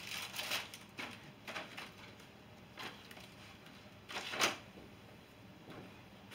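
A few scattered short rustles and knocks from someone handling things off to the side, with the loudest rustle about four seconds in.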